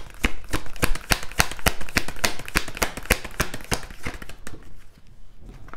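A tarot deck being shuffled by hand: a quick run of card clicks and slaps, about five a second, that thins out and softens after about four and a half seconds.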